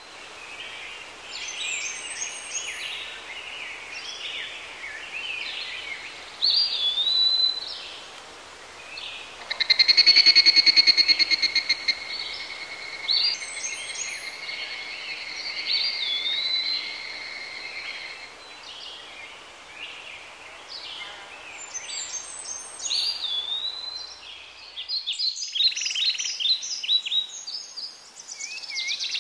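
Wild birds calling: repeated high chirps and whistled notes that swoop up and down. A steady pulsing buzz runs from about ten seconds in until about eighteen seconds.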